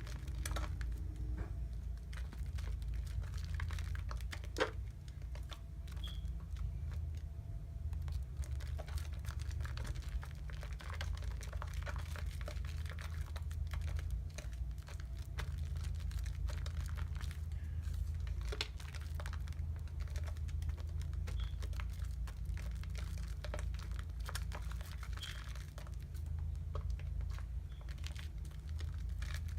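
Soap being lathered close to the microphone: a steady, dense crackling of foam and bubbles, over a low steady rumble.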